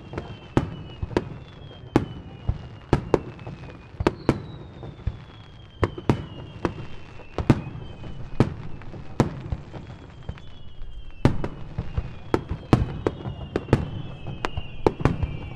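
Fireworks display: aerial shells bursting in a string of sharp bangs, about one a second and coming faster near the end, with long whistles sliding slowly down in pitch between them.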